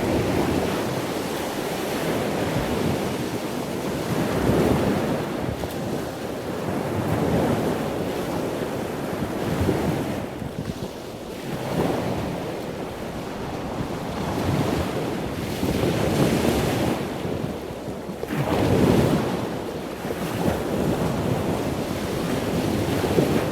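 Ocean waves washing in and drawing back, swelling and fading every two to four seconds, with a rushing of wind.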